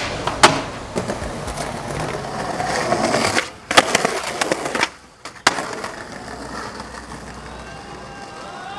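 Skateboard wheels rolling on pavement, broken by sharp cracks of the board popping and slapping down on landing. The loudest crack comes about half a second in, with more a few seconds later.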